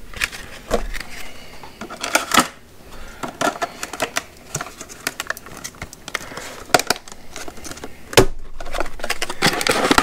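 Plastic blister packs and a charger being picked up, handled and set down on a table: irregular clicks, taps and crinkles, with a sharper knock about eight seconds in.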